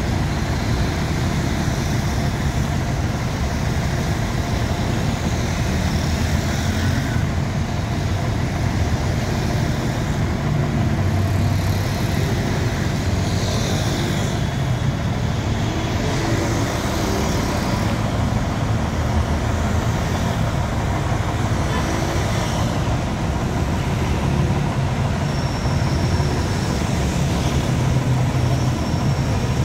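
A heavy vehicle's engine running steadily amid road traffic, with a few vehicles passing.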